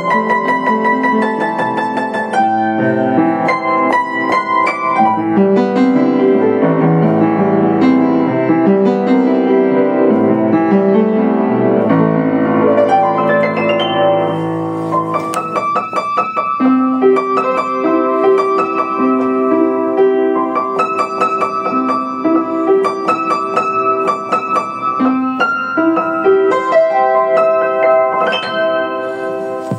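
Yamaha U1J upright piano played solo: a busy passage of quick notes over a moving bass, changing about halfway through to a lighter texture of held chords with repeated higher notes.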